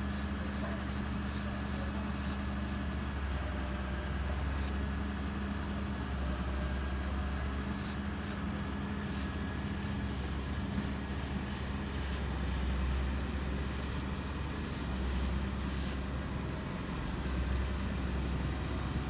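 An engine running steadily, with many short clicks and knocks over it.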